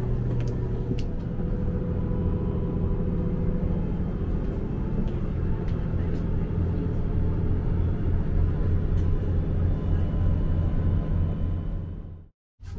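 Inside the cabin of the Yufuin no Mori diesel train under way: a steady low rumble with an engine hum, cut off abruptly near the end.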